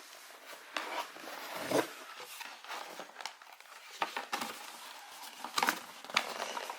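Packaging being handled during an unboxing: rustling with scattered sharp clicks and knocks.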